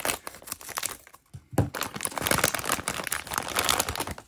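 Metallic foil bag crinkling and crackling as it is cut open with scissors and a plush toy is pulled out of it. The crackling is densest in the second half, after a brief lull.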